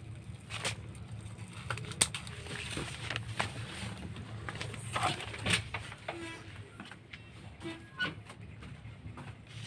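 Cats and kittens crunching dry kibble: scattered crisp clicks over a low steady hum, with a couple of short tooting tones in the second half.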